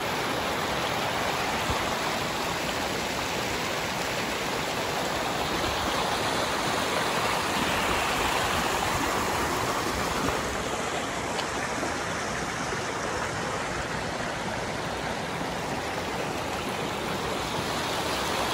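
Waterfall and stream water rushing, a steady, unbroken hiss of falling and flowing water.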